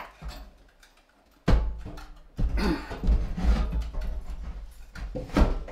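Stainless steel sink thumping and clattering against the edges of the countertop cutout as it is worked down into an opening too tight for it. A sharp, heavy bump comes about a second and a half in, followed by repeated knocks and a hollow ringing from the metal bowl. The sink is jamming on a lip of concrete overhanging the cutout edge.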